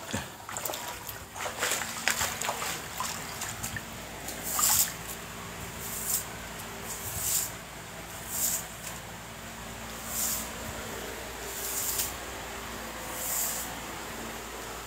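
Footsteps wading through shallow floodwater: a cluster of splashes at first, then a short slosh with each step, about one every second and a half, over a faint steady hum.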